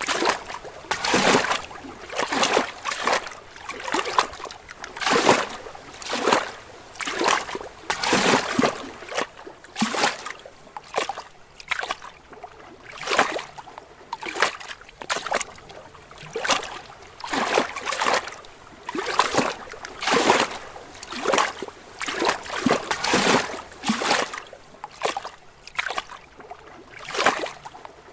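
Small lake waves lapping against rocks, a soft splash about every second in an uneven rhythm.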